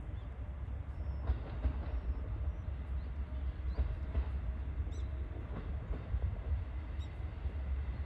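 KiHa 40 single-car diesel railcar rolling slowly into a station, its diesel engine running with a steady low rumble. Scattered clicks come from the wheels passing over rail joints and points.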